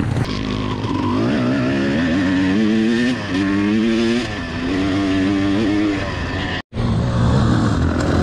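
2001 Honda CR250's single-cylinder two-stroke engine, heard onboard, revving hard and accelerating up through the gears: its pitch climbs and drops back at each shift. The sound cuts off abruptly near the end, and other dirt bike engines are heard around it before and after.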